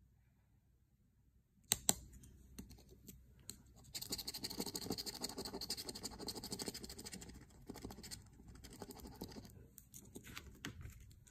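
Lottery scratch-off ticket being scraped, its coating rubbed off in a dense run of rapid strokes from about four to seven seconds in, then lighter, scattered strokes. The scraping starts about two seconds in with a couple of sharp taps.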